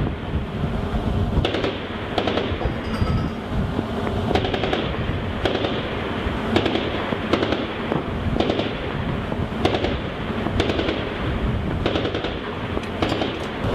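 Mk38 25mm chain gun (M242 Bushmaster) firing a slow series of single shots, roughly one a second, over a steady rush of wind and ship noise.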